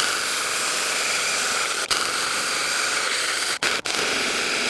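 ImoumLive 6-inch 21 V battery mini chainsaw cutting through an ash log, running steadily with three very brief dropouts, about two seconds in and twice near four seconds.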